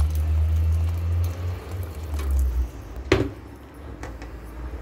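Hot water poured into a pot of lentil soup, the stream splashing into the liquid for about two and a half seconds before stopping, followed by a single sharp knock a little after three seconds in.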